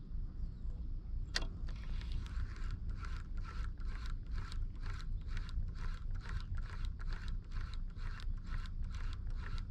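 A sharp click, then a spinning reel (Daiwa Ballistic LT4000-C) being cranked to work and retrieve a metal jig, its gears rasping in a steady rhythm of about three strokes a second, over a low steady rumble.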